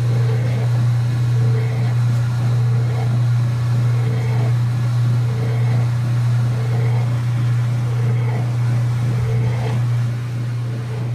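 Whirlpool direct-drive top-load washing machine running in its spin cycle: a loud, steady low motor hum, with a faint swell higher up about every second and a half.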